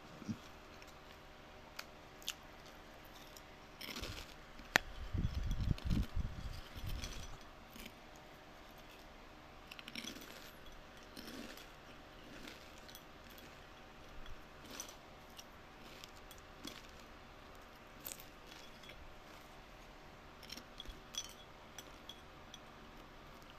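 Watermelon being bitten and chewed: scattered small crisp clicks and crackles, with a denser run of crunching about four to seven seconds in. A faint steady hum sits underneath.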